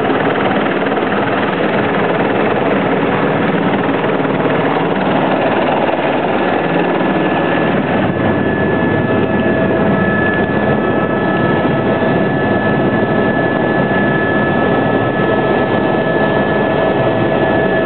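Helicopter running at close range: a loud, steady rotor and engine noise, with a few steady whining tones joining about halfway through.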